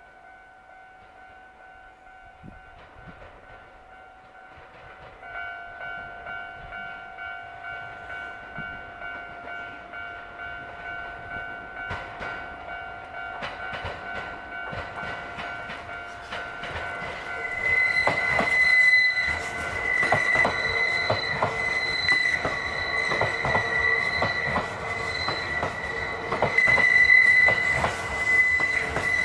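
Level-crossing warning bell ringing steadily as a train approaches and passes. From about halfway in, the wheels clatter over the rail joints, and a high steady wheel squeal sets in a little later. The whole grows louder toward the end.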